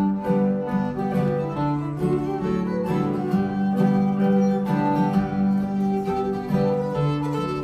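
An old-time fiddle tune played live on fiddle, with an acoustic guitar strumming a steady rhythm accompaniment.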